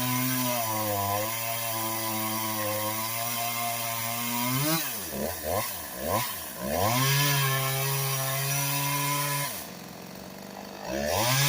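Stihl MS 192 TC two-stroke top-handle chainsaw running at high revs, its revs dropping and surging several times around the middle, falling to idle near the end and revving back up just before the end.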